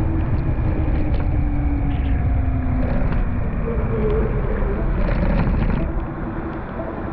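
Car driving: a steady low rumble of engine and road noise, which eases off about six seconds in.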